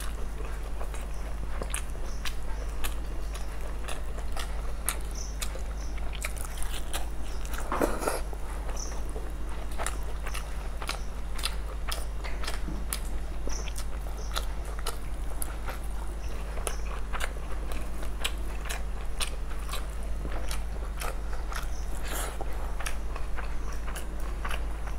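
Close-miked chewing and mouth smacking of people eating fried rice and egg curry by hand: a dense stream of small wet clicks, with a fuller mouth sound about eight seconds in, over a steady low hum.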